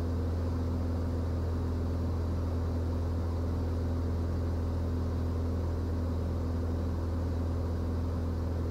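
Single-engine Cirrus SR20's engine and propeller droning steadily inside the cabin, a constant low hum with no change in pitch or level, while the plane descends.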